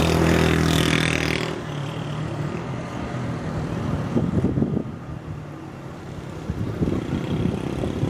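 Engine noise, a steady hum with a high whine above it, fades out in the first second and a half, then strong wind buffets the microphone in irregular gusts.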